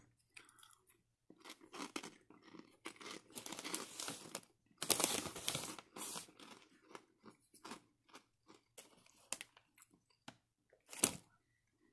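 A person biting into and chewing a puffy fried pork rind: a run of irregular crisp crunches, loudest about five seconds in, with one more sharp crunch near the end.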